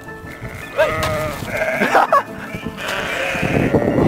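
Sheep bleating, with two calls about one and two seconds in, over background music.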